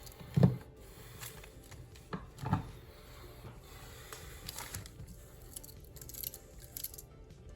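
Two short, dull thumps about two seconds apart, followed by scattered light clicks and taps, like small objects being handled on a work surface.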